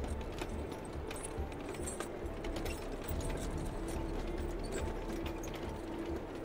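A background soundtrack of dense, irregular clicks and clanks over recurring low thuds, with faint music.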